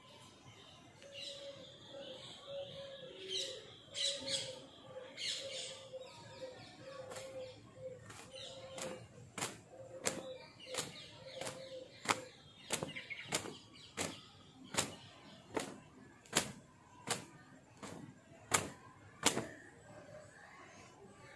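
A towel whipped against long wet hair to dry it, giving a steady run of sharp slaps about every three-quarters of a second that grow louder toward the end.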